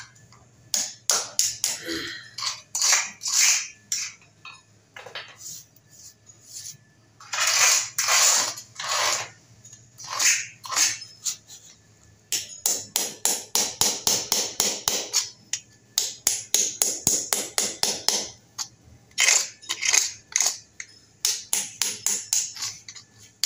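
Hammer striking a steel chisel in runs of sharp taps, about four a second, chipping lifted ceramic floor tile and the hardened plaster gripping its edge off a concrete stair step.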